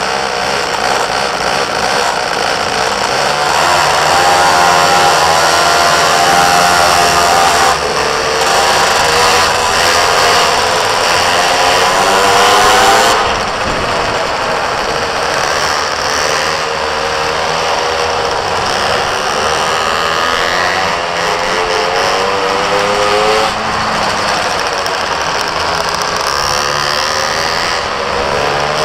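Minimoto engine buzzing at high revs under load, its pitch rising and falling again and again as the throttle opens and closes through the corners, loudest in the first half.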